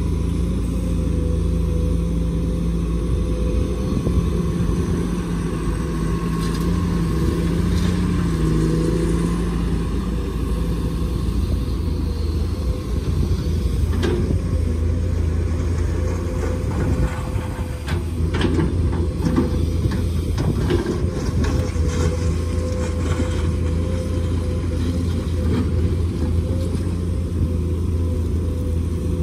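Heavy diesel machinery, an excavator and dump trucks, running steadily with a low engine hum. A sharp knock comes about halfway through, followed a few seconds later by a run of knocks and clatter.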